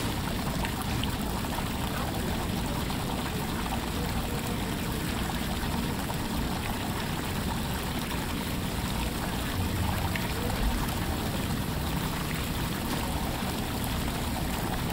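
Running water, a steady, unbroken rush and trickle like a stream or small waterfall.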